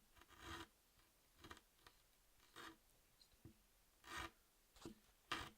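A series of short foley scraping strokes, about eight of them at an uneven pace, the loudest near the end.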